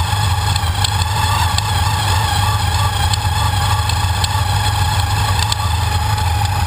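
Supercharged Camaro engine with a TVS2300 supercharger, running steadily with a steady whine and sharp knocks recurring every second or so at uneven intervals. The owner takes the knock for a bearing going out.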